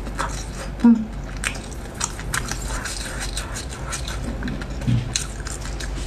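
Close-miked chewing of a bite of sausage: many small moist clicks and crunches, with a short hum of the mouth closed just under a second in.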